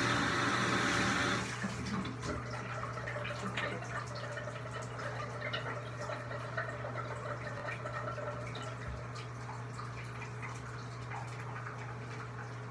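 Handheld shower spray running in a bathtub, shut off about a second and a half in. Then come scattered drips and small splashes over a steady low hum.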